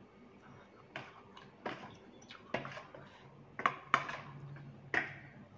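Metal fork and spoon clinking and scraping against a bowl of rice noodles in curry, about six sharp clinks, two in quick succession about four seconds in, with slurping and chewing of the noodles.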